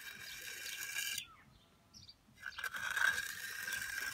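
A hand finishing tool scraping over fresh, wet concrete while a construction joint is tidied. Two gritty strokes with a pause of just over a second between them.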